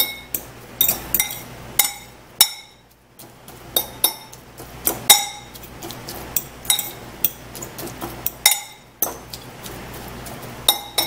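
Metal fork clinking and scraping against a ceramic bowl in irregular taps while mashing shredded chicken and soft cooked vegetables together.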